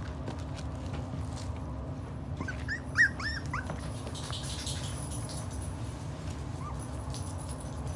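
Miniature pinscher puppies, just under five weeks old, giving a quick run of several short high-pitched yips and whimpers about three seconds in, then one faint yelp near the end, over a steady low hum.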